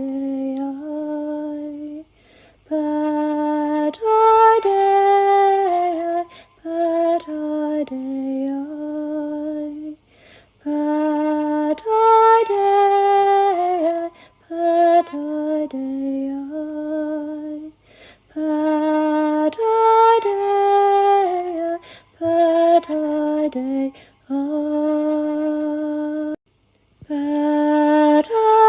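A woman singing slow, melodic phrases a few seconds long, separated by short pauses, in a meditative chant.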